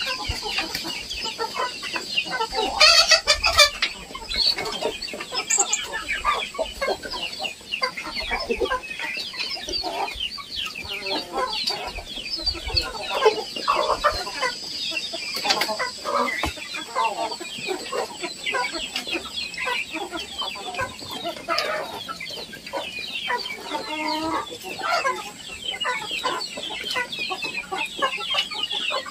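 A flock of Indonesian village chickens (ayam kampung) clucking and cheeping, with a dense, continuous chatter of many short calls and a brief louder outburst about three seconds in.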